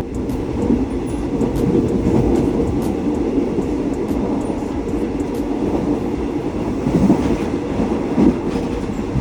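Passenger train running along the rails, a steady rolling noise with no breaks.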